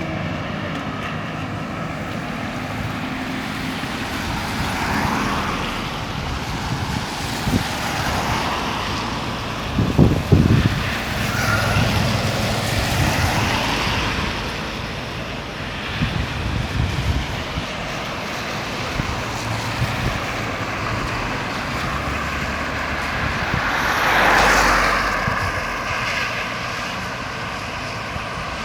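Road traffic: cars passing one after another, each swelling and fading, with short louder engine rumbles about ten and sixteen seconds in.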